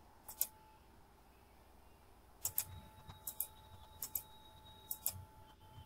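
Computer mouse clicking: five quick double clicks, each a press and release, spread over a few seconds.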